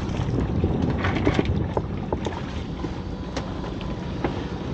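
Wind buffeting the microphone and water splashing against the hull of a small open boat, with a few sharp knocks and clicks from the fishing gear scattered through it.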